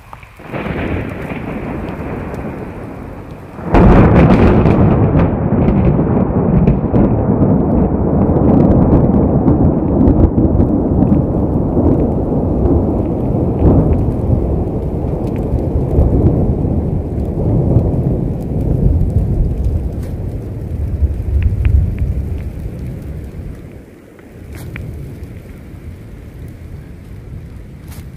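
Thunder: a low rumble starts about half a second in, then a loud clap about four seconds in rolls on for some twenty seconds and dies away near the end.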